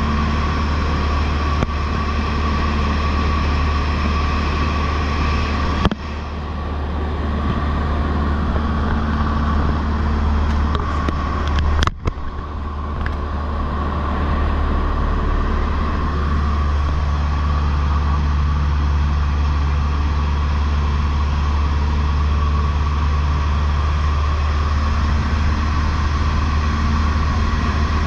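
Cessna 152's Lycoming O-235 four-cylinder engine and propeller droning steadily in cruise flight, with a steady whine above the low drone. The sound twice drops suddenly and builds back up over a few seconds.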